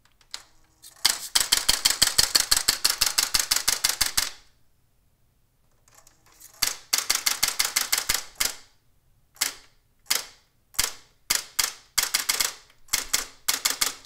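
Barbie E115 electronic typewriter printing: two fast, even runs of sharp clacks at about nine strokes a second, the sign of a stuck key repeating the same letter over and over. These are followed by single, irregular strikes as keys are pressed one by one.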